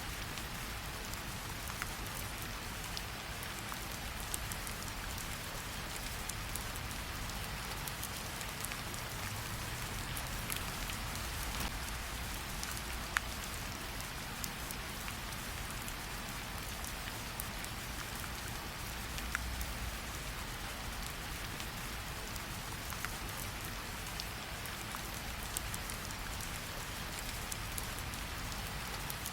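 Steady rain falling, with a low rumble underneath and occasional sharp pops and crackles of a campfire, one louder pop about halfway through.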